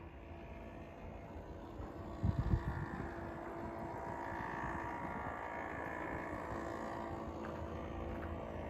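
Traffic noise: a vehicle passing, its sound swelling and fading over a few seconds, with a gust of wind buffeting the microphone about two seconds in.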